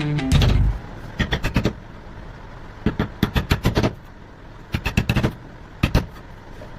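Sharp clicks and knocks in four short quick groups, over a low steady background noise.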